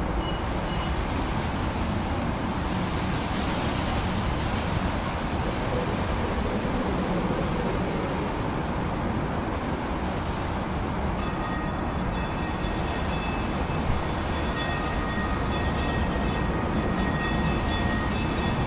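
Streetcar rolling steadily along rails, a continuous rumbling running noise. From about the middle on, a few faint, thin, steady high tones sit over it.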